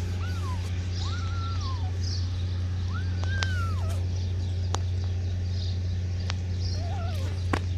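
Kittens meowing: about four short, thin mews that rise and fall in pitch, spread over several seconds, with a few sharp clicks. A steady low hum runs underneath.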